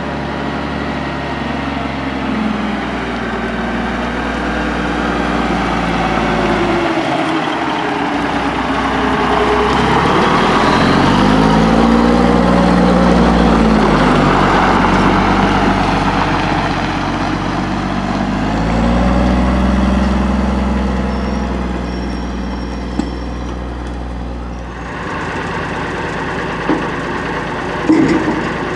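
Diesel engine of a 1986 Peterbilt 310 front-load garbage truck driving past, its pitch sweeping up and then down, loudest about halfway through. Near the end the sound changes abruptly to the truck idling, with a few short clanks.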